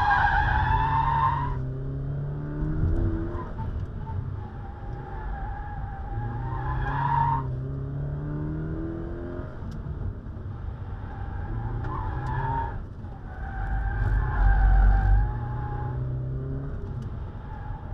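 Toyota 86's flat-four engine running hard under cornering, heard from inside the cabin, its pitch rising and falling, with the factory tyres squealing as they slide in about five separate stretches of a second or two.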